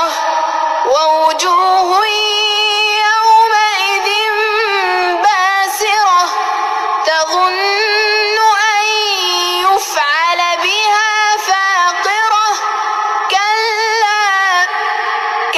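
Quran recitation in a high voice, chanted in melodic tajweed style with long ornamented phrases and brief pauses for breath between them.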